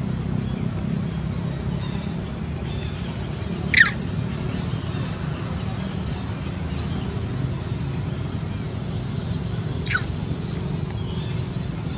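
Two short, shrill animal calls that drop steeply in pitch, about six seconds apart, the first the louder, with a few faint chirps between them, over a steady low rumble.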